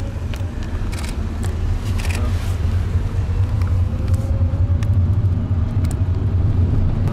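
Low, steady engine and road rumble heard inside a moving car's cabin, growing a little louder as the car picks up speed, with a few light clicks.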